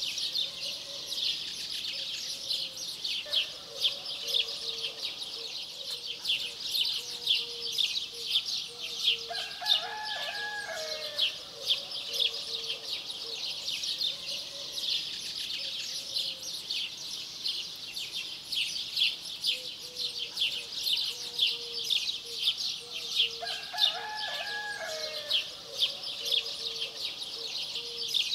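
Dawn countryside ambience: dense, continuous high chirping of many small birds, with a rooster crowing twice, about ten seconds in and again near the end. A low note repeats in a steady string through much of it.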